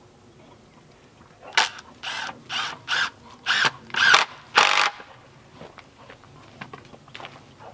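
Cordless drill driving a screw into a wooden fence rail in seven short trigger bursts over about three seconds, the last burst the longest.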